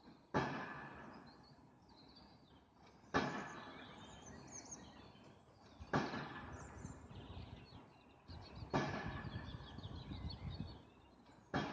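A loud, heavy thump repeating about every three seconds, five times in all. Each thump starts sharply and dies away in a long echoing tail.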